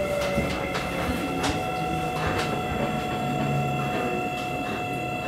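A Seibu 9000-series train running, heard inside the passenger car. Its Hitachi IGBT VVVF inverter gives a steady high whine of several pitches over the low rumble of the wheels, with scattered clicks from the wheels on the track.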